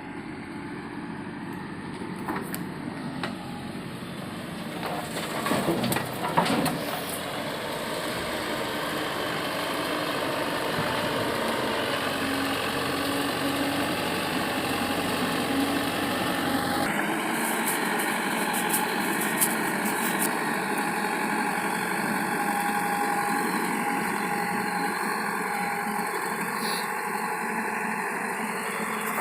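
Diesel engine of a JCB 3DX backhoe loader running steadily, with a few louder knocks and clanks about five to seven seconds in. The sound changes abruptly about two-thirds of the way through.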